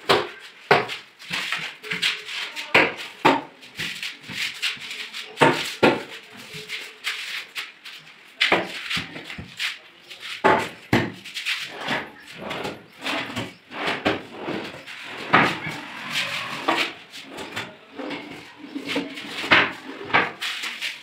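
Modular kitchen cabinet doors and drawers being opened and shut: a run of irregular knocks and clacks.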